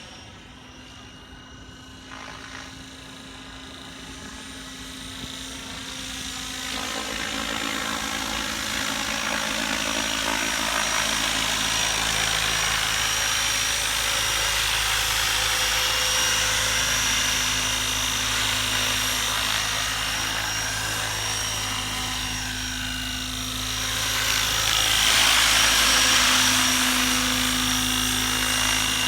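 A 12-cell electric radio-controlled model helicopter running, its rotor and electric motor giving a steady whine. The sound grows louder over the first ten seconds or so, then holds, with a louder swell near the end.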